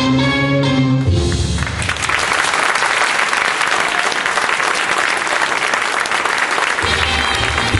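A song ends about two seconds in, and an audience applauds and cheers. Music starts up again near the end.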